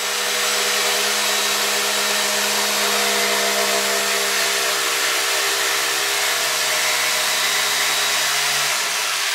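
Corded electric jigsaw running steadily while its reciprocating blade cuts through a wooden board along a fence, a continuous whirring motor hum with the hiss of the cut. The deeper part of the hum drops out near the end.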